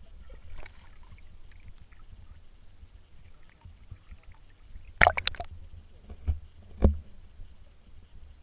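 Low, muffled water rumble from a camera dipped at the waterline beside a canoe. About five seconds in comes a rapid cluster of loud, sharp knocks, then two single thumps over the next two seconds.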